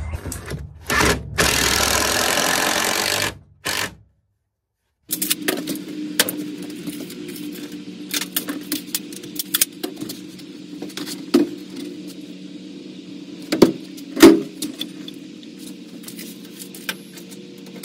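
A circular saw cutting through a 2x4 board for about two seconds. After a break, a steady low hum with scattered knocks and clicks as the wooden framing is worked on, two sharp knocks standing out near the end.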